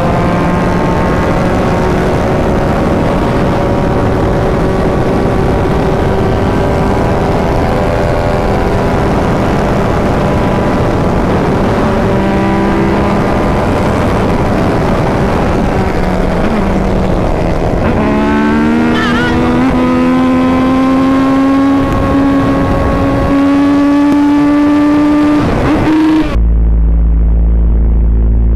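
Tuned 190 cc motorcycle engines running at full throttle at high speed, with wind rush. The engine note holds steady, dips briefly about eighteen seconds in, then climbs steadily as the bikes accelerate, before cutting off abruptly near the end to a duller steady hum.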